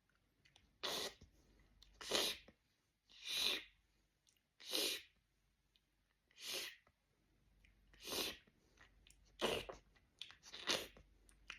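Beatboxer's mouth sounds: a string of about eight short, breathy, hissing bursts, one every second or so, made with the mouth and breath rather than any instrument.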